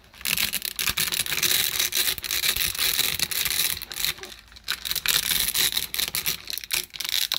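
Thin resin 3D-print supports snapping and crackling as a large resin print is pried and peeled off its dense support lattice. The sound is a fast, continuous run of fine cracks, with a brief lull about four seconds in. The maker finds it a very satisfying sound.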